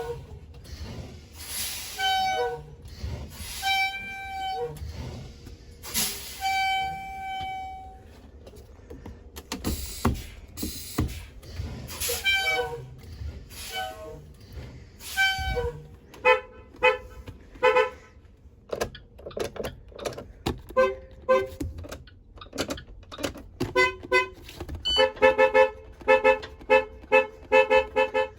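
School bus horns being honked: a few separate blasts in the first half, one held for about two seconds, then from about halfway on a fast run of short toots that gets busier near the end.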